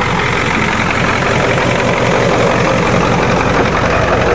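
Ford diesel truck engine idling steadily.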